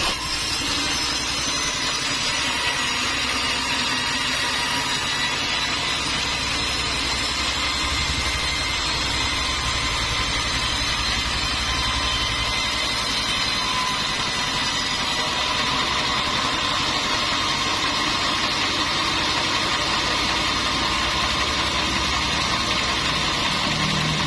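Sawmill machinery running steadily: a constant mechanical drone with several steady high-pitched tones over it.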